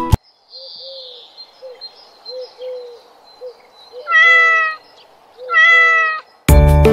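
A cat meowing twice, two long meows about a second and a half apart, over faint outdoor ambience with small soft chirps.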